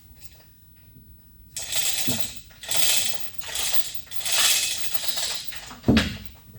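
Metal parts scraping and clinking in several short bursts, then a single thump near the end.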